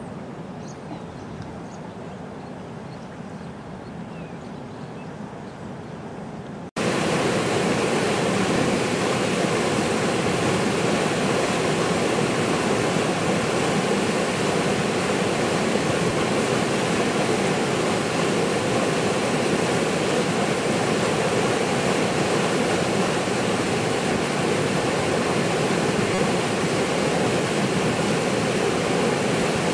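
A river in flood after heavy rain: first the quieter rush of the fast-flowing, swollen river, then, about seven seconds in, an abrupt change to the loud, steady roar of floodwater pouring over a weir into white water.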